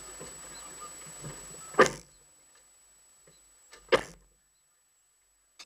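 Two sharp knocks on a camera's waterproof case as it is handled, one just before two seconds in and one about four seconds in. After the first, the faint background noise drops away to near silence.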